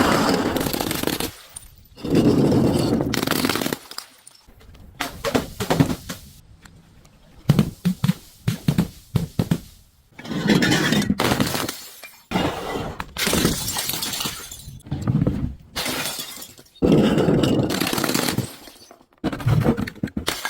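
Glass bottles breaking one after another, each a sudden shatter with a second or so of crunching and tinkling shards after it, with clusters of sharp cracks in between.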